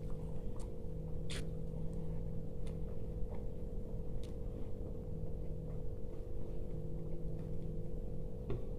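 Eating sounds from dahi golgappa being eaten: scattered soft clicks and crunches, irregular and a second or so apart, from the puri shells being picked off the plate, bitten and chewed, over a steady low hum.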